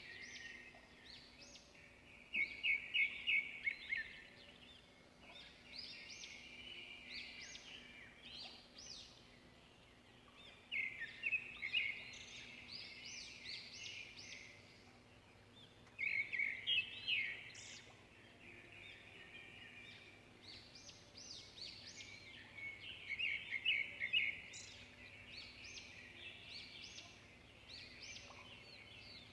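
Birds chirping in bouts of quick, repeated high notes every few seconds, over a faint steady hum.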